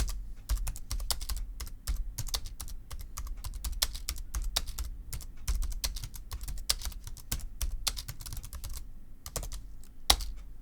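Typing on a TypeMatrix split ortholinear keyboard with chiclet keys: a fast, irregular run of key clacks that thins out near the end, with one louder stroke.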